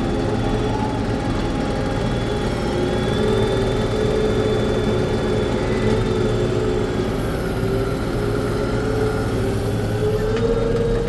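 Fendt 724 tractor engine running steadily, a continuous mechanical drone whose pitch rises slightly near the end.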